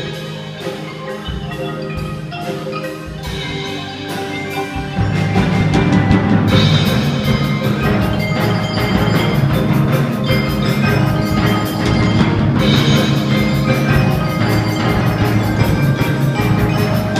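A youth percussion ensemble playing live, with mallet instruments such as marimba and xylophone carrying the melody over a steady beat. About five seconds in, the full ensemble with drums and bass comes in and the music grows louder and fuller.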